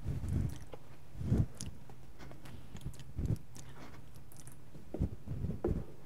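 A few soft, irregular thumps and rustles of people moving and handling things, over a steady low hum.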